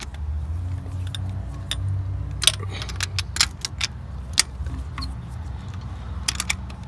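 A socket wrench on an extension turns the nuts off the exhaust manifold studs, making scattered sharp metallic clicks and clinks at irregular intervals, several of them in quick succession about halfway through. A steady low rumble runs underneath.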